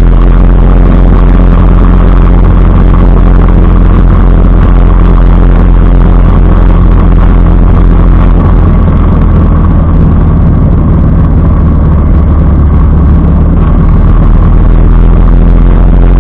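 Motorcycle engine running steadily at cruising speed while riding, loud and even throughout.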